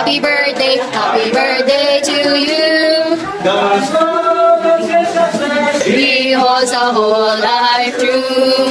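Voices singing a melody, with long held notes.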